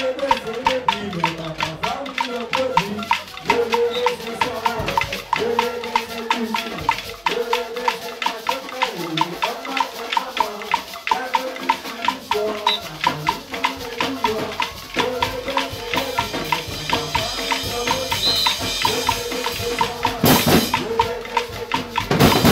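Carnival percussion band playing: big bass drums struck with mallets, snare drums and cymbals beating a fast, steady rhythm, with a voice singing over it.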